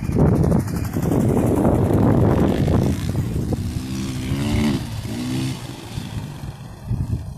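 Motorcycle engines running as dual-sport bikes ride a slow cone course on dirt. A loud rough rush fills the first three seconds. From about halfway through, one bike passing close has its engine revving up and down in short pulls.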